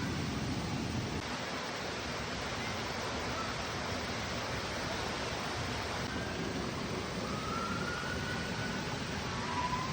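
Waterfall's rushing water: a steady, even rush with no let-up, with a few faint short whistles in the second half.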